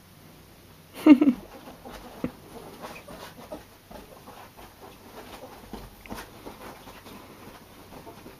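Two ferrets wrestling on a bed, with irregular soft taps and scuffles on the bedding. A short loud pitched cry comes about a second in.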